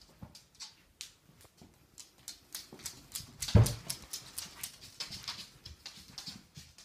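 Miniature dachshund puppies' claws clicking on a laminate wood floor as they scamper about playing, with one louder thud about three and a half seconds in.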